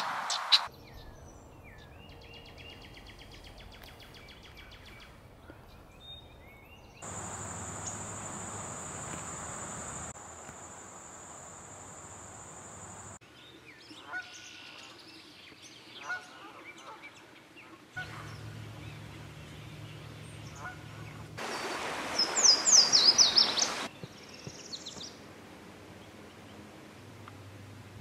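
Bird calls from several different short recordings spliced together. These include scattered chirps, a steady high-pitched buzz lasting a few seconds, and, loudest, a quick run of high descending whistled notes about three-quarters of the way through.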